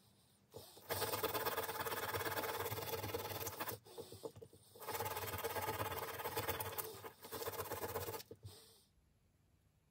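A small hand wire brush scrubbing paint and rust off a steel bicycle saddle clamp part in rapid strokes. It comes in three bouts with short breaks, and stops shortly before the end.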